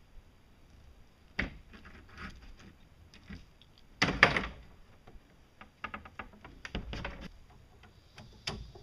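Hand-tool work on a plywood board: scattered clicks, knocks and clatter of tools and parts being handled and set down, with one louder clatter about four seconds in.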